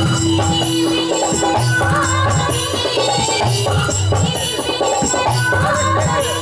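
Live Bhojpuri-style stage band playing: electronic keyboards over a steady rhythm of dholak hand-drum strokes and shaker-like rattle percussion, with a female singer's voice.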